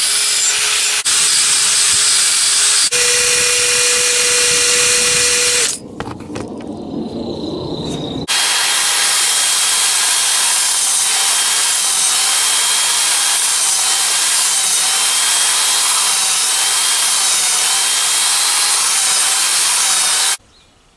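A cordless drill spins a wire wheel brush against a rusty steel hatchet head: a steady motor whine under the hiss of the wire scrubbing off rust. After a brief, lower and quieter stretch, an upturned belt sander runs while the hatchet blade is ground on its abrasive belt, a steady bright hiss that cuts off shortly before the end.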